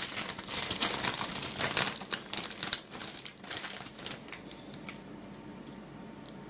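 Plastic bag of shredded mozzarella crinkling as it is handled and opened, a dense crackle that thins to a few scattered clicks after about four seconds.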